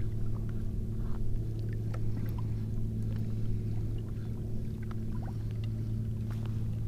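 A steady low hum with a few overtones above it, and faint light clicks and taps scattered over it.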